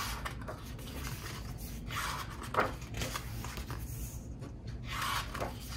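Pages of a thick hardcover photobook being turned by hand: a few soft paper swishes and rustles, the loudest about two and a half seconds in.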